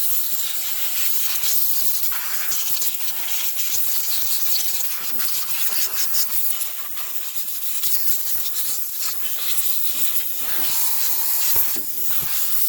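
Compressed air from an air-compressor blow gun hissing steadily, blowing dirt off a chainsaw so it can't get into the fuel.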